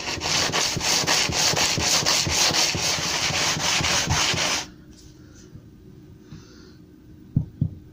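A planer blade clamped in a wooden jig being rubbed back and forth on wet, worn coarse abrasive paper (about 40 grit) in quick even strokes, honing notches out of the edge. The rubbing stops suddenly a little over halfway through, and a couple of light knocks follow near the end.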